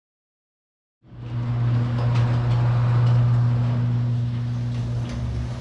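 A car engine starts to be heard about a second in and runs at a steady speed with an even, constant drone.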